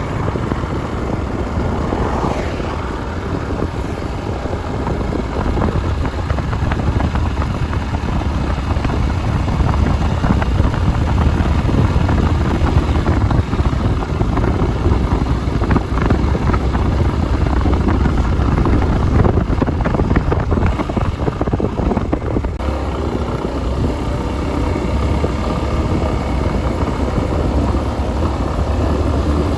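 Motorcycle riding along with its engine running steadily and wind rushing over the microphone.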